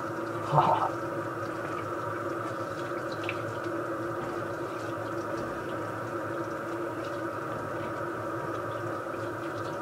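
Tap water running steadily into a sink while shaving lather is rinsed off the face by hand, with one louder splash about half a second in.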